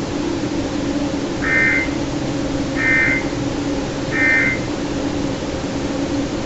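NOAA Weather Radio SAME header: three short bursts of data tones, about a second and a half apart, over a steady hum and hiss from the receiver. These are the coded bursts that open an Emergency Alert System message, here a severe thunderstorm warning.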